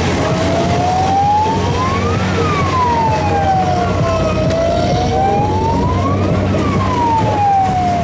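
A wailing siren, its pitch rising and falling slowly about twice, over a vehicle engine running steadily.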